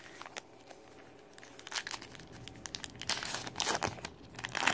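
Crinkling and tearing of a baseball card pack wrapper being handled and torn open, a run of sharp crackles that grows denser and louder about a second and a half in.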